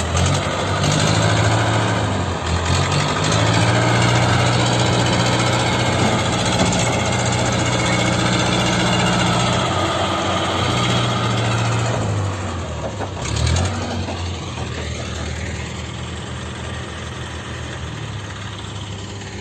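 Diesel engine of a small mobile crane running under load as it drives through mud, its pitch rising and falling in steps. It settles to a quieter, lower run a little past halfway.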